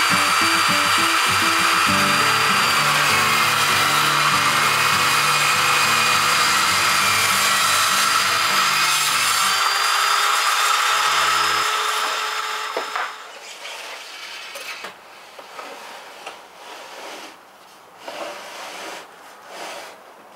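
Circular saw mounted upside down under a table as a table saw, running with a steady whine and cutting wood. It shuts off about two-thirds of the way through, leaving scattered knocks of wood being handled.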